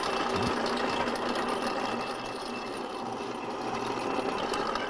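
Drill press running steadily as its bit bores a rivet hole through a carbon-steel skillet.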